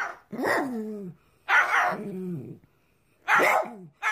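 Small dog barking over and over in pairs of barks, each bark's pitch falling away at the end.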